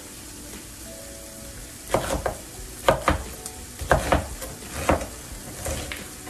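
Chef's knife chopping cabbage on a plastic cutting board: sharp chops begin about two seconds in and repeat roughly once a second, often as quick double strokes.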